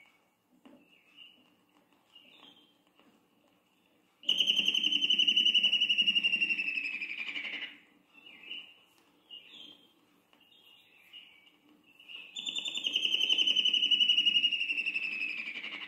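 Vira-folhas negro, a leaftosser, singing two long phrases, each a fast trill that slides steadily down in pitch for about three and a half seconds, with soft short calls in between.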